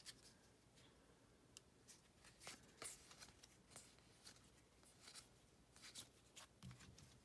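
Faint handling of a stack of baseball trading cards: soft flicks and swishes as the cards are slid off one another and flipped through, irregularly about once a second.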